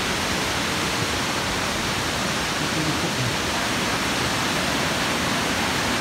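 Steady rushing hiss of Gooseberry Falls, the river's water pouring down the falls, heard from above the gorge.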